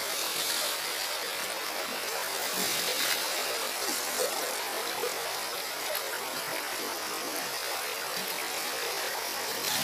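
Shallow river water flowing over its bed with a steady rush.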